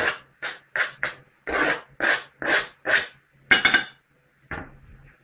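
A kitchen utensil scraping against a dish or chopping board in quick rhythmic strokes, about two a second, with the longest stroke near the end before it stops.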